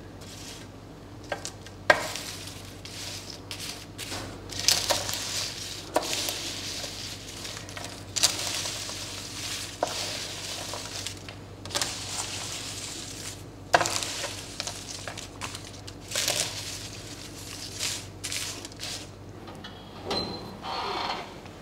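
Crisp, freshly baked phyllo pastry squares being stirred and turned on a metal sheet pan: dry rustling and crunching strokes with clicks and scrapes of the utensil on the tray, coming irregularly every second or two. A steady low hum sits underneath.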